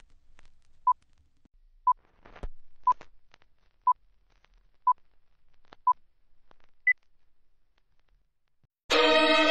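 Six short beeps at one steady pitch, one a second, then a single higher beep, like a countdown signal, with a few faint clicks and a low thump among them. Bowed string music starts loudly near the end.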